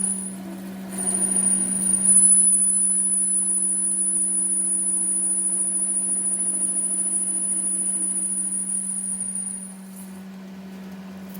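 A workshop machine running with a steady low hum and a high-pitched squeal, typical of metal being machined. The squeal drops out for about a second near the start and stops about ten seconds in, while the hum carries on.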